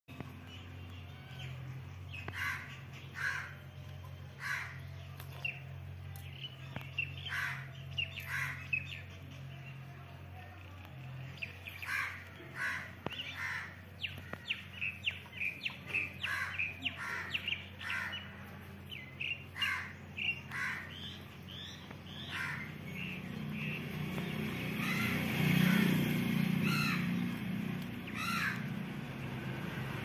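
Many short bird calls, repeated, in places several a second, over a steady low hum. A broader rush of noise builds near the end.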